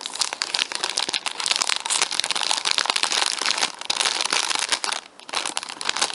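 Clear plastic packaging bag crinkling steadily as it is handled, with a brief lull about five seconds in.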